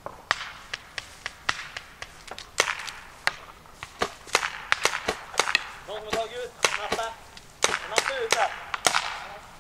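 Paintball markers firing in an exchange of fire: dozens of sharp pops at uneven intervals, sometimes several in quick succession. Voices shout briefly about six seconds in and again near the end.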